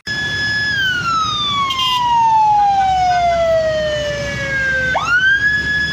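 Police siren wailing over a low rumble: the tone holds high, slides slowly down for about four seconds, then sweeps quickly back up near the end and holds again.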